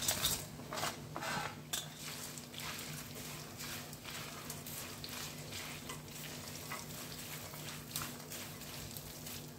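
Cashews, almonds and roasted chana dal pushed off a steel plate into a steel kadai, then stirred with a wooden spatula through peanuts, coconut and curry leaves frying in a little oil: irregular clicks, rattles and scrapes of nuts against the metal, busiest in the first two seconds, over a soft frying sizzle.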